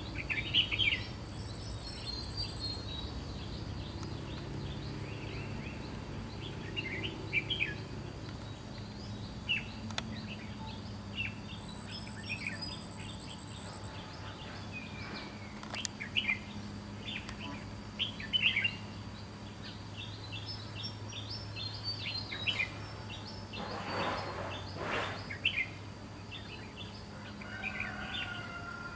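Red-whiskered bulbuls calling in the tree canopy: short chirps and whistles scattered throughout, with a brief rustling burst late on.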